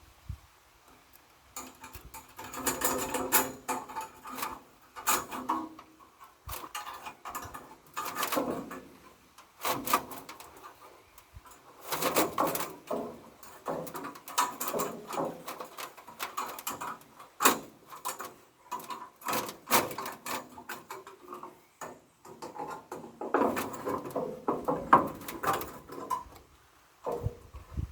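Irregular knocking, scraping and clattering as things are handled, coming in bursts with a few short pauses.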